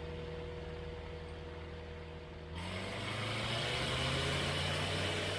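Flight Design CTSW's Rotax 912 four-cylinder engine and propeller running at low power, then about two and a half seconds in the throttle goes forward and the engine rises sharply to takeoff power, its pitch stepping up and the sound growing louder and fuller as the takeoff roll begins.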